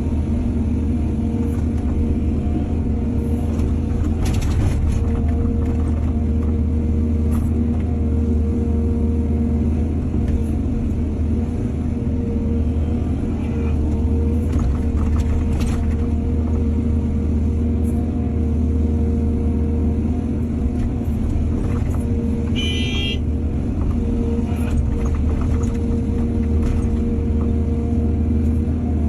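Excavator's diesel engine running steadily under load, with a few metallic knocks and a brief high squeal about two-thirds of the way through.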